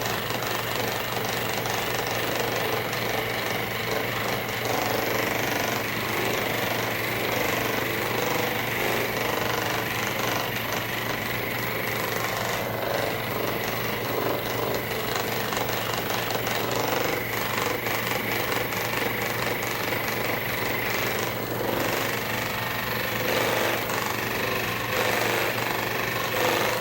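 Percussive massage gun running steadily, its head hammering rapidly against the patient's tight muscles to relax them.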